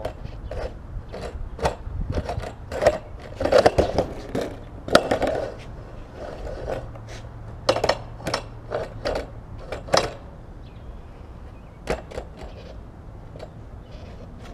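Skateboard wheels and deck knocking and scraping on a wooden beam: a run of sharp clacks as the board is shifted and stepped on. The clacks are dense for about the first ten seconds, then thin out to a few.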